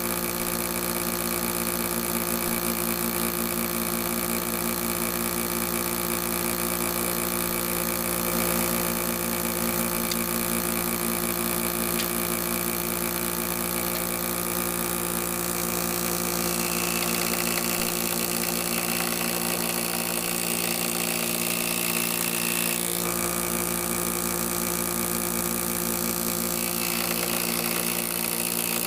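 An electric woodworking power tool running steadily: a constant motor hum with hiss, its higher noise shifting partway through and again near the end.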